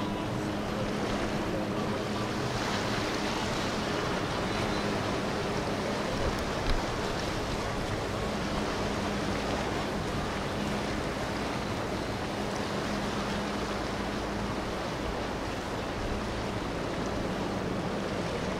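Beneteau Gran Turismo 44 motor yacht cruising past: a steady rush of water from its bow wave and wake over a low, steady engine drone.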